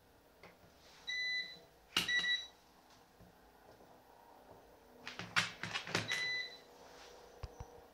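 Three short electronic beeps, each at one steady high pitch, about a second in, about two seconds in and near six seconds in. Between them come sharp clicks and scraping as multimeter test probes and a small circuit board are handled.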